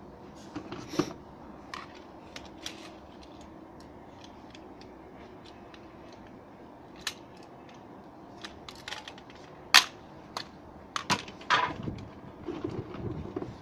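Scattered sharp clicks and knocks of plastic adjustable paving pedestals being handled and set under tiles, with the loudest click about ten seconds in and a run of clacks near the end, followed by rustling in a cardboard box.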